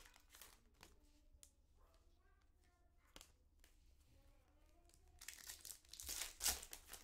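Foil trading-card pack wrapper crinkling as it is torn open and handled, briefly at the start and again louder from about five seconds in. Between the two, only faint voices in the background.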